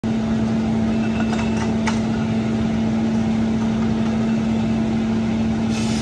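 Steam-powered sawmill running with a steady, unchanging hum, with a few light knocks about one and a half to two seconds in.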